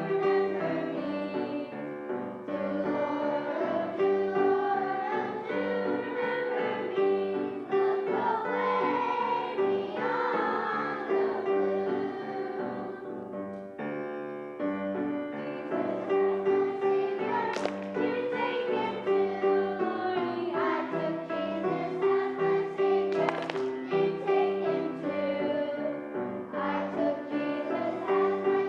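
Music: a song sung by a group of voices with instrumental accompaniment.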